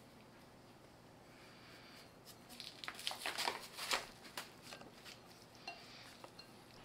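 Faint rustling and light clicks of sugar and cut orange pieces being handled in a glass bowl. It is quiet at first, then a cluster of clicks comes from about two to four seconds in, with a few scattered ones after.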